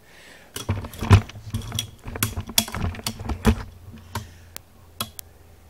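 Camera handling noise as the camera is picked up and carried: a run of knocks, bumps and clicks on the microphone for about three seconds, then a few sharp single clicks.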